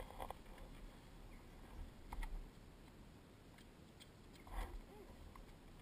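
Faint low wind rumble on a helmet-mounted microphone, with a few soft knocks and a brief rustle of gear being handled; the dirt bike's engine is not running.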